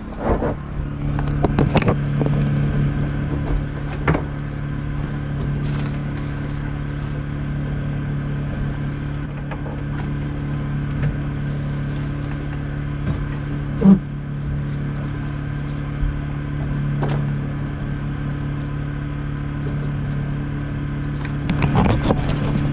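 Generator running with a steady drone, with a few knocks and clatters on deck, one louder knock past the middle.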